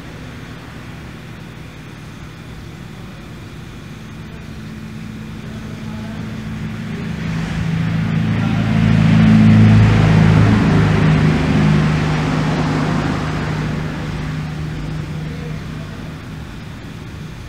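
A motor vehicle passing outside: a low engine hum with several steady tones swells up, is loudest about ten seconds in, then fades away, over a steady hiss.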